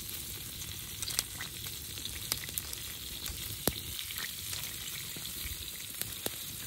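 Scallops sizzling in their half-shells over the glowing embers of a wood fire: a steady hiss with scattered sharp pops and crackles.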